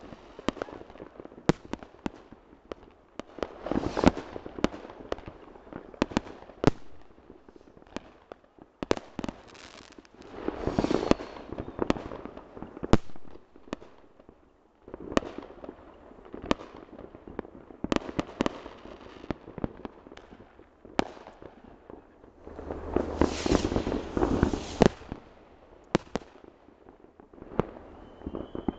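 Fireworks going off over a town: many sharp bangs at irregular intervals, with several denser spells where the bangs and bursts run together, the longest near the end.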